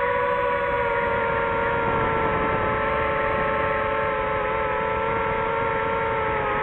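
DJI FPV drone's motors and propellers whining steadily in flight, the pitch holding nearly level and sagging slightly near the end.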